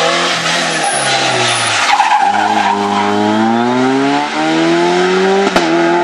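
Rally car passing at speed, its engine dropping in pitch at a gear change about two seconds in and then revving up steadily as it pulls away. Tyres hiss through the bend early on, and a sharp crack sounds near the end.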